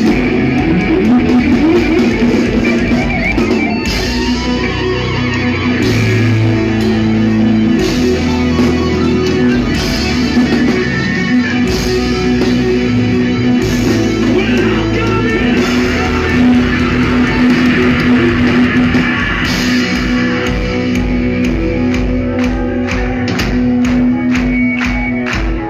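Progressive metal band playing live at full volume, with distorted electric guitar, bass and drums over a venue PA, heard through a phone in the crowd. In the last few seconds a fast, even beat comes to the front.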